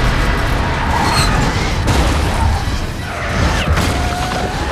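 Film sound design of a volcanic eruption: repeated booms and crashing impacts of falling debris over a continuous deep rumble, with music score underneath.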